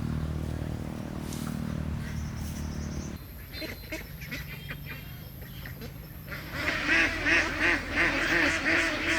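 A steady low engine hum for about three seconds, which breaks off abruptly. Then a flock of ducks starts quacking loudly in rapid, overlapping calls about two-thirds of the way in.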